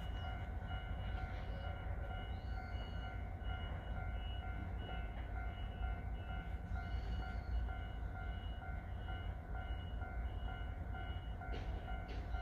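Steady low rumble with a distant electronic warning tone repeating a little over once a second, and a few short bird chirps.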